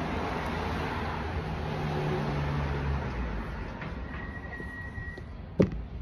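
Steady low motor hum, strongest in the first half, with one sharp knock near the end.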